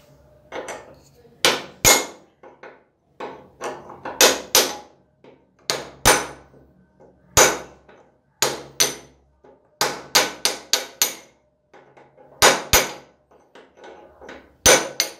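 Hammer blows on a motorcycle's steering head, knocking the steering stem loose: sharp metal strikes with a short ring, in short runs of two to five with pauses between.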